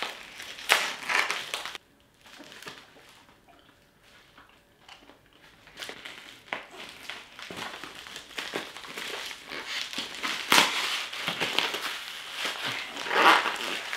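Packaging crinkling and crunching as it is wrestled with by hand, being hard to get open. The handling cuts out suddenly about two seconds in and stays faint for about four seconds. It then comes back busier and louder toward the end.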